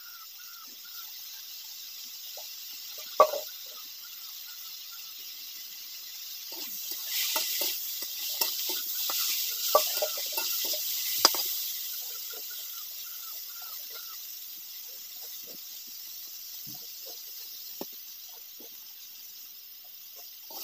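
Chopped vegetables sizzling as they fry in oil in a steel wok, stirred with a metal spatula. The sizzle swells in the middle, with a few sharp clinks of the spatula against the wok.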